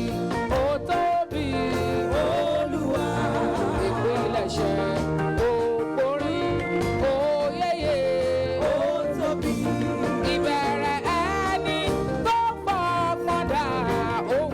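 Gospel band music with a steady beat, bass and drums under a melodic line that bends in pitch.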